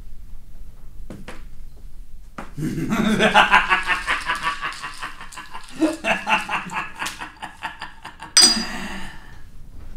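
Laughter in rapid ha-ha pulses, starting about two and a half seconds in, with a short, louder outburst near the end.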